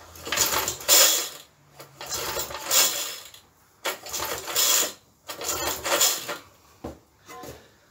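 Recoil starter of a 3.5 hp Briggs & Stratton lawn mower engine pulled four times, each pull a whirring rattle of about a second as the engine spins over freely, followed by a shorter, weaker pull near the end. The spark plug is out of the cylinder and lying on its lead for a spark check.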